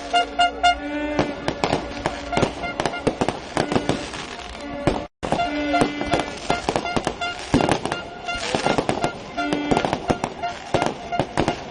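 Fireworks going off in dense, rapid crackling and banging, over music of short repeated pitched tones. The sound drops out completely for a moment about five seconds in.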